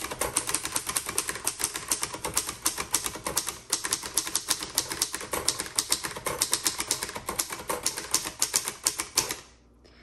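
1954 Hermes Rocket portable typewriter being typed on quickly and steadily: a fast, even run of keystrokes, the typebars clacking against the platen, stopping shortly before the end.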